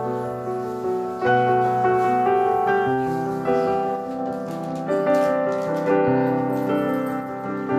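Background music played on a piano-like keyboard: sustained chords, with new notes struck every second or two.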